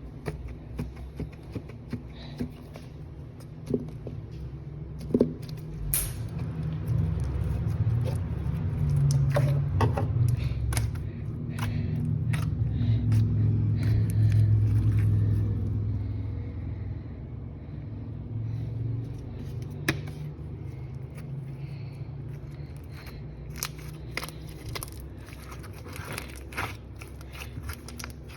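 Hands playing with slime close to the microphone: scattered sharp clicks and crackles over a low rumbling handling noise that swells in the middle.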